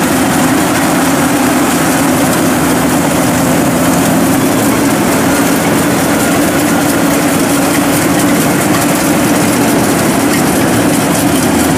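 Zoomlion EH100E rice combine harvester running steadily as it drives and cuts through the paddy, its engine and threshing machinery making a continuous loud drone.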